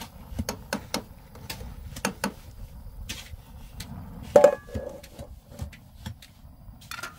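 Irregular knocks and clinks of tools and objects being handled, with one louder clank that rings briefly about four and a half seconds in.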